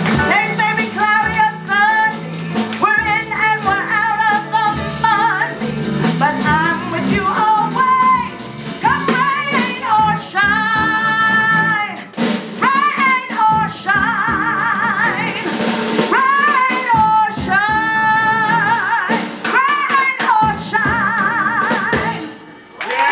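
A woman singing live with a band behind her, drums among it, her long held notes wavering with vibrato. The song ends about a second before the close.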